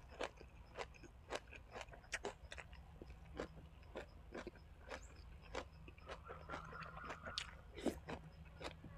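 A person chewing food close to the microphone, with short crisp clicks of the bite about two to three times a second.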